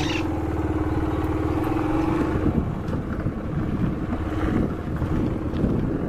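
Small motorcycle engine running while riding, steady for the first couple of seconds, then its pitch changing about halfway through.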